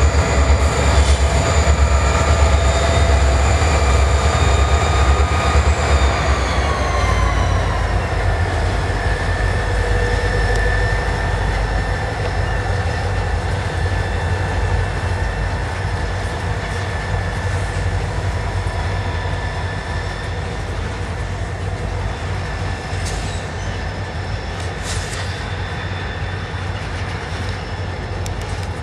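Norfolk Southern freight train with EMD SD40-2 diesel locomotives passing under power. A deep engine rumble and a steady whine of several tones slide down in pitch together about six to eight seconds in as the units go by. The cars then roll past as the sound slowly fades.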